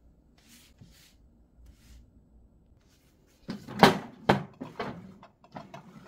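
Faint rustling, then from about three and a half seconds in a run of sharp knocks and clatter as household things are handled in a kitchen. The loudest knock comes just before four seconds.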